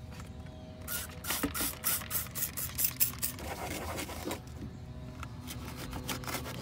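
Microfiber cloth rubbing over grained plastic interior trim in quick scratchy wiping strokes, a dense run of swipes starting about a second in and another near the end.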